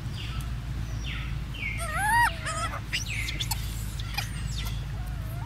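Baby macaque giving short, wavering whimpering cries, the loudest about two seconds in and fainter gliding ones after, over a steady low rumble.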